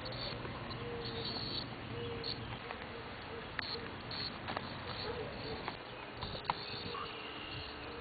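Cicadas buzzing in short, repeated bursts, with a few sharp clicks among them.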